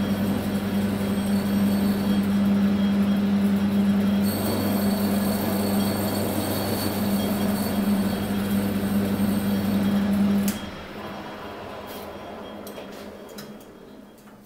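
Belt-driven lathe of a Warco WMT800 lathe-mill combo running with a steady electric-motor hum while turning an aluminium billet. About ten seconds in it is switched off, the level drops sharply and the spindle runs down.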